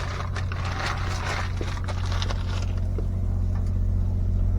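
A steady low motor hum, with a hiss over roughly the first two and a half seconds and a few light clicks.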